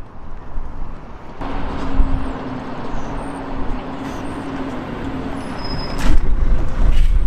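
Large road vehicle, a bus or lorry, going by with its engine running and a steady hum. A heavier low rumble builds about six seconds in.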